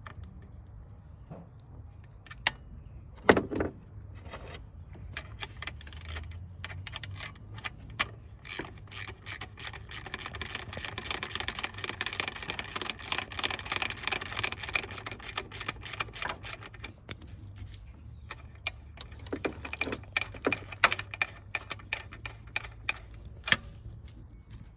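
Hand tools and metal parts clicking, knocking and rattling at the front of a Toyota Corolla engine while the accessory drive belt is being taken off. A run of rapid clicking lasts several seconds in the middle, with scattered knocks before and after.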